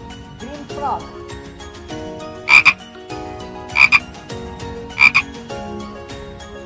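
Frog croaking: three loud calls about a second and a half apart, each a quick double croak.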